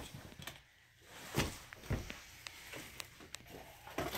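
Handling noises: a few soft thunks and light knocks, spread irregularly, as shoes are set down on a table and pulled out of a cardboard box.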